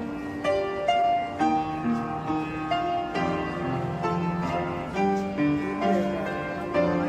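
Instrumental music: a melody of held and struck notes over a lower accompaniment.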